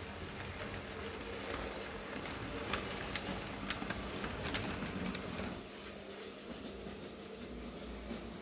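H0-scale model diesel locomotive and mail van rolling along the track, their wheels clicking sharply over rail joints and points four or five times around the middle, after which the running noise falls away.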